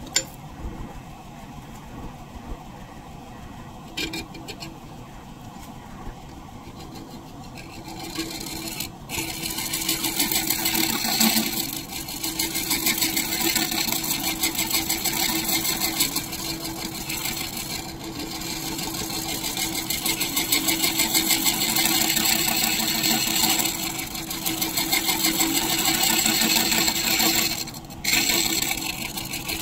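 Wood lathe spinning a large maple disc, with a few light clicks. About eight seconds in, a large scraper is pushed into the wood and a loud, steady hissing scrape of the cut takes over. It breaks off briefly near the end when the tool comes off the wood.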